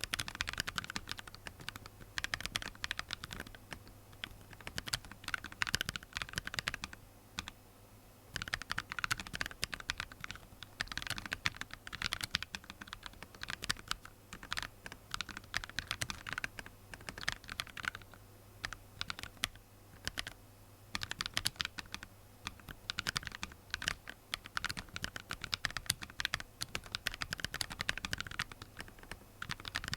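Keyboard typing on Jwick Vertex V1 factory-lubed linear switches (PA66 housings, POM stems) in a Cocot46Plus keyboard: rapid runs of keystrokes in bursts of a few seconds, with short pauses between.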